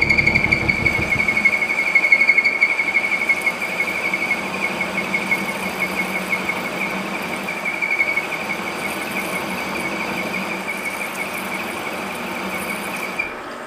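A lathe parting blade cutting into a spinning ETD 150 steel bar gives a steady high-pitched squeal over the lathe's running hum. The squeal stops just before the end.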